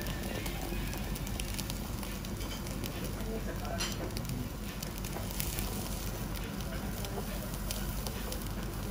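Thick cuts of wagyu beef sizzling on a wire grill over hot charcoal, the fat crackling and popping in scattered sharp ticks, with one louder pop about four seconds in.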